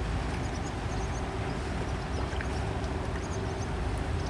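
Steady low rumble and hum from the passing Berlin-class supply ship Bonn (A 1413), with a few faint high chirps from small birds.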